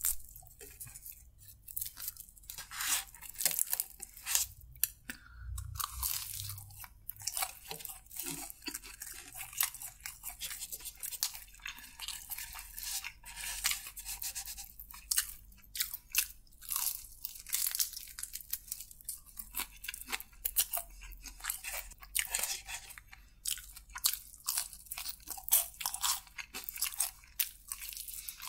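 Close-miked crunching and chewing of KFC crispy fried chicken, the crisp batter cracking in quick irregular bursts with each bite and chew.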